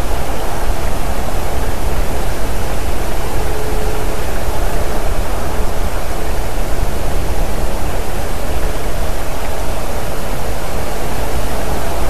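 Steady, loud rushing noise with a heavy low rumble: wind buffeting an outdoor nest camera's microphone.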